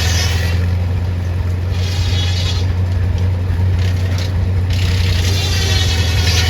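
Loud engine running steadily with a deep, unbroken hum, and a high whine that fades out and returns a few times.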